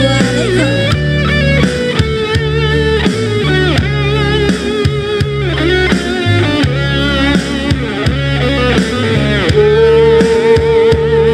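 Instrumental rock music: a wavering, bending electric-guitar lead over a steady bass line, with a long held note about nine and a half seconds in.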